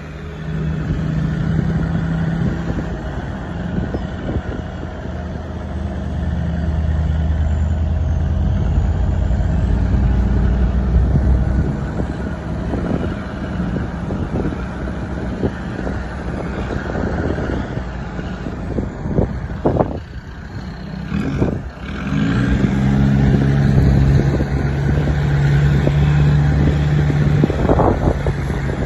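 4x4 off-road vehicle engine working under load, its pitch stepping up and down with the throttle. A few sharp knocks come about twenty seconds in and again near the end.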